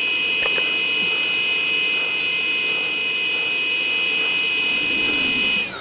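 Electric ducted fan of a Freewing L39 model jet running at low throttle with a steady high whine, then spooling down with a quick falling pitch near the end.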